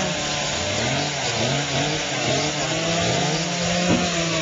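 Chainsaw cutting through a fallen log, its engine pitch sagging under load and picking up again several times.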